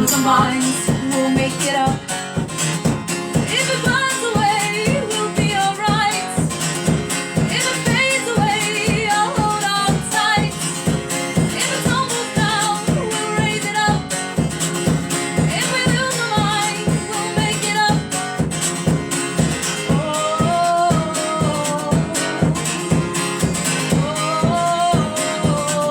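A song performed live: women's voices singing over strummed acoustic guitar with a steady rhythm.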